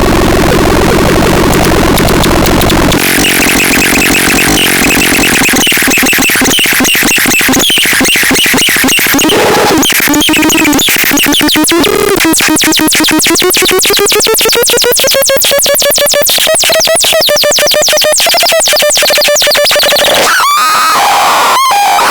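Harsh electronic synthesizer noise from the DOTENNOX 101. A dense buzzing drone gives way after about three seconds to a fast stuttering pulse with squeaky gliding tones, whose pitch dips and then climbs slowly before breaking up near the end.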